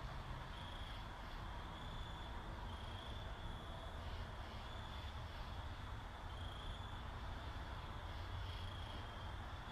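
Short, high-pitched chirps repeating roughly once a second, typical of a cricket, over a steady low hum.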